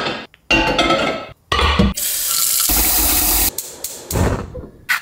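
Water running from a tap into a cooking pot, filling it for the first step of boiling. The steady rush of water lasts about two seconds midway through.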